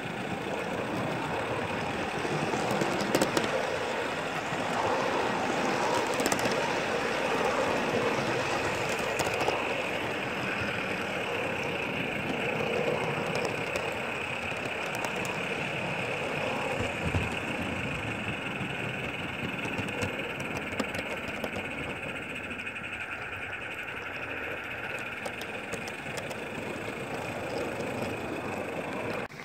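Ride-on miniature railway train running along its track, heard from a riding car: a steady mechanical running noise with a steady hiss-like band on top and scattered sharp clicks from the wheels and track.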